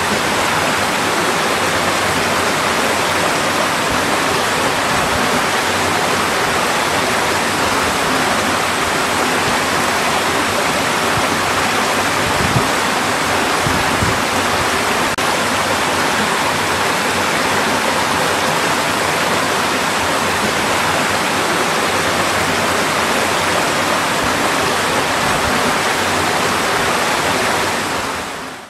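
Mountain valley stream rushing steadily, with a continuous full water noise that fades out near the end.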